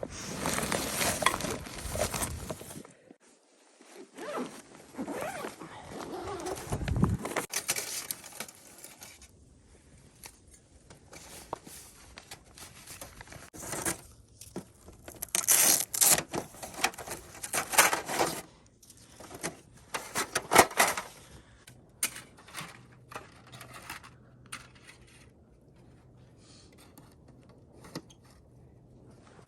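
Metal parts of a camp wood stove and its chimney pipe being handled and fitted together: irregular clinking, rattling and scraping. There is a dull thud about seven seconds in and a busier stretch of clatter about halfway through, then only scattered clicks.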